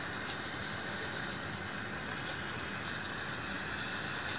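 Hot oil with onions and spices steadily sizzling in a miniature steel pot.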